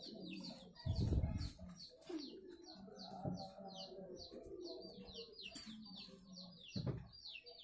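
A small bird chirping a fast, steady series of short, high, falling notes, about three a second, with a couple of dull thumps, one about a second in and one near the end.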